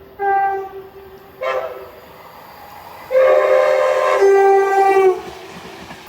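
Train horn sounding several notes at once: two short blasts, then one long blast of about two seconds, the loudest.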